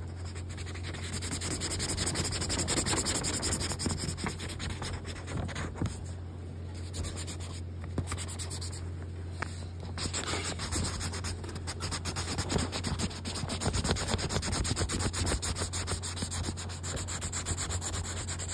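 Brown marker tip scrubbing on paper in quick back-and-forth colouring strokes: a steady, busy scratching and rubbing.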